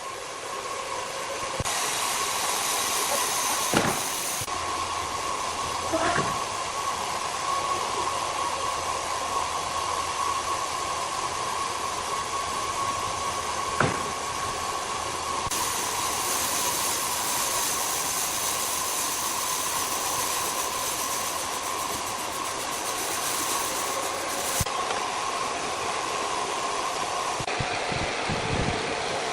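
Wood-cutting machinery running: a steady noise with a constant whine through it and a few sharp knocks.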